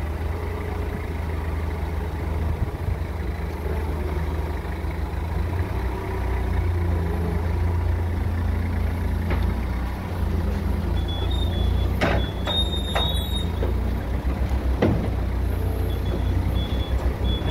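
Komatsu forklift engine running with a steady low drone while it carries a loaded pallet into a steel shipping container. A few sharp knocks come about twelve seconds in, and a high beeper sounds in short pulses in the second half, typical of a forklift's reversing alarm.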